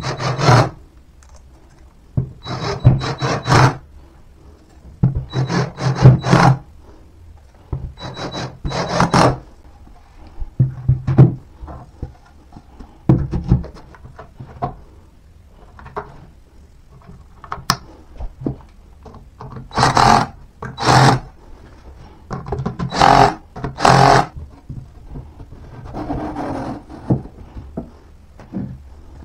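Cordless drill-driver driving screws into particleboard furniture panels, in repeated short runs of about a second each with a motor whine. Between the runs there is quieter rubbing and scraping as the panels and hardware are handled.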